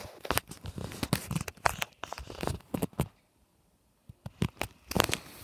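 Handling noise: irregular crackling and rubbing as fingers and clothing brush against the recording device's microphone, with a brief quiet gap a little past halfway.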